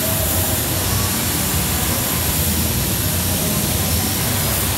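TIG welding arc burning steadily on a pipe root pass: an even hiss with a low hum underneath.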